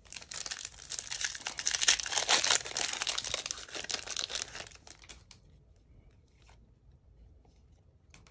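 Foil Topps Chrome trading card pack being torn open and its wrapper crinkled by hand, crackling for about five seconds and loudest in the middle. After that only a few faint clicks of cards being handled.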